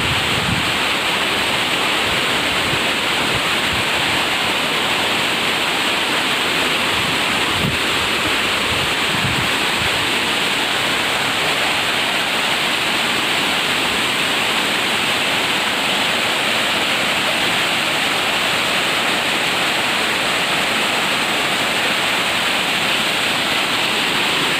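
Benang Kelambu waterfall: water falling and splashing in a steady, unbroken rush. A few soft low thumps come in the first ten seconds.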